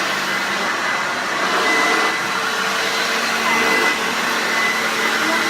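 A c1962 Hoover Junior 1334A upright vacuum cleaner running steadily, a continuous motor-and-fan rush with a faint steady whine on top.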